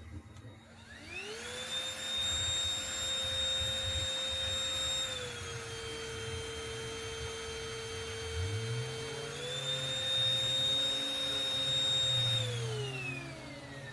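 Ingco 20V cordless handheld vacuum cleaner's motor spinning up to a steady whine, dropping to a lower pitch about five seconds in and rising back about four seconds later, then winding down near the end.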